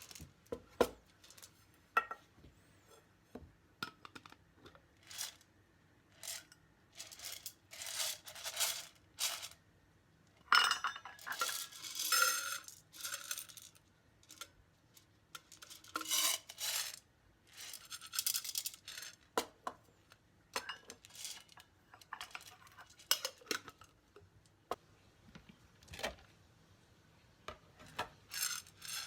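Kitchen dishes and utensils being handled: scattered clinks, taps and short rustling scrapes, a few with a brief ring.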